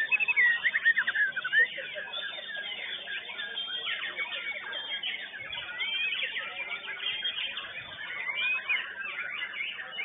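Many white-rumped shamas (murai batu) singing together in rapid whistled phrases and trills, with one loud, close song in the first couple of seconds over a dense chorus of other birds.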